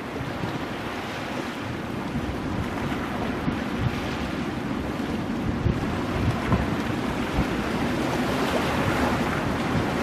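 Ocean surf washing and breaking on rocks as a steady rush that swells gradually in the second half, with wind buffeting the microphone in low rumbles.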